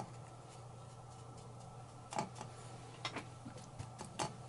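A few soft taps of a paintbrush dabbing thick paint onto a textured figure, about a second apart, over a steady low hum.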